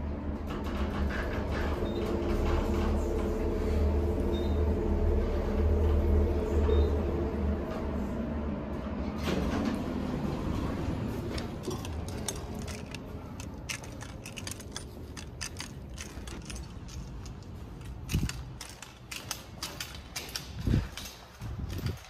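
Montgomery elevator car travelling with a steady low hum, which dies away about nine seconds in as the car stops. After that come scattered clicks and footsteps on a hard tiled floor.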